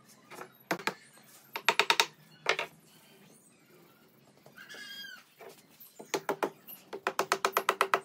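Cordless power driver running a screw into wood in short bursts: a rapid clicking rattle of about ten clicks a second over a steady motor tone, a brief burst early and a longer run near the end, with single knocks of wood between.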